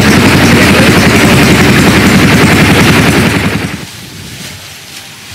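Small engine running hard with a loud, rapid chattering exhaust, then dropping away sharply a little under four seconds in as it is throttled back or shut off.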